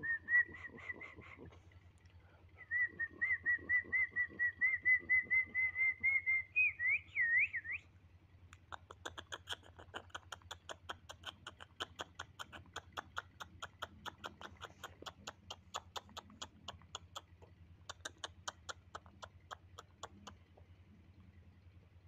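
High, bird-like whistled calls: a short whistle on one pitch, then a longer pulsing whistle ending in a few quick rising and falling swoops. These are followed by a long run of quieter, rapid chirps, several a second, that pauses briefly and resumes before stopping.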